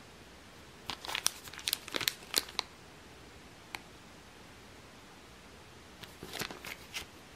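Clear plastic package of fishing beads crinkling as it is handled, in two bursts of crackles: one about a second in and one near the end, with a single tick between.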